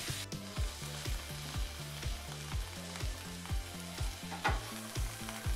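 Butter sizzling as bread cubes fry in a pan into croutons, under background music with a steady beat of about two thumps a second and a stepping bass line.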